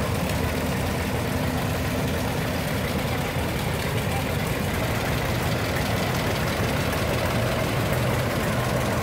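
Antique John Deere two-cylinder tractor engines running steadily at low speed as the tractors pass.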